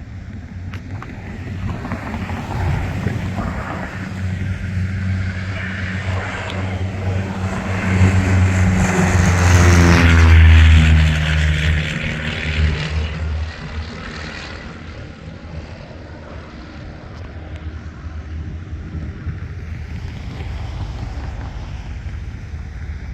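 Single-engine propeller airplane flying low overhead: it grows louder to a peak about ten seconds in, its pitch drops as it passes, then it fades away.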